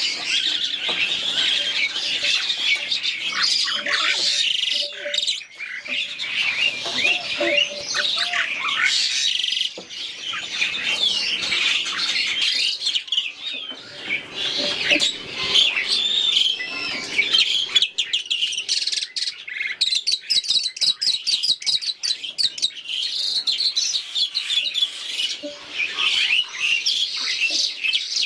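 Many caged starlings and mynas calling over one another: a dense, unbroken mix of whistles, chirps and harsh squawks. A rapid rattling trill comes about two-thirds of the way through.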